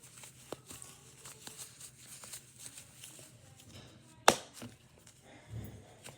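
Hands handling unboxed gear: faint scattered rustles and small clicks, with one sharp loud snap about four seconds in.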